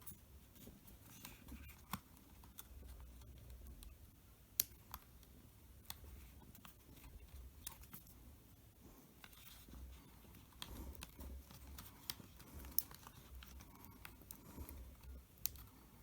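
Faint, scattered small clicks and taps of hands handling the open laptop's internal parts while fitting a piece into place, with a couple of sharper clicks about four and a half and thirteen seconds in.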